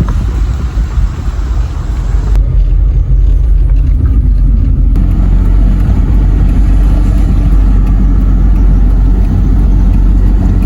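Tata Nano's small two-cylinder petrol engine labouring up a steep hill road, a loud steady low rumble with road noise inside the car. A hiss in the first couple of seconds cuts away about two seconds in.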